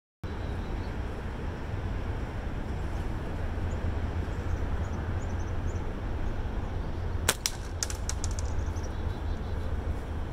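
A slingshot shot: a sharp snap about seven seconds in, a second crack a moment later, then a quick run of fainter rattling clicks. Under it, a steady low outdoor rumble and a few faint bird chirps.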